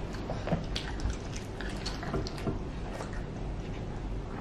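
Children chewing tacos: scattered wet mouth sounds and small sharp clicks over a low steady room rumble.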